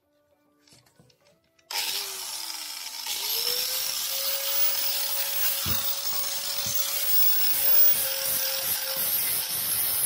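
Angle grinder with a flap disc starting up about two seconds in and running steadily, its whine settling to one pitch, as it is brought to a rusty steel brake caliper to grind off rust and casting seams.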